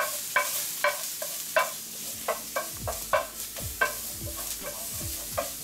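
Minced garlic sizzling in hot olive oil in a metal frying pan, with a spoon stirring and knocking against the pan in irregular strokes, each knock ringing briefly.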